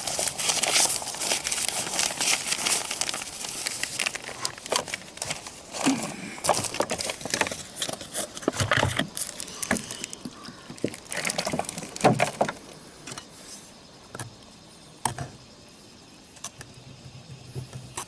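Scraping and clinking of ceramic roof tiles being handled and worked, with many short knocks; dense for the first few seconds, then sparser and quieter near the end.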